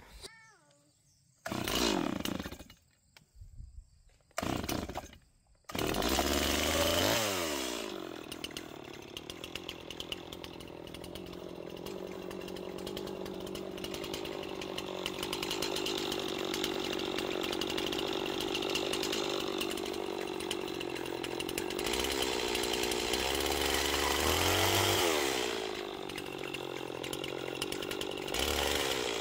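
Stihl MS 260 two-stroke chainsaw running from about six seconds in after a few short separate sounds: revved high, pitch falling back to a steady idle, then revved up and let back down again near the end.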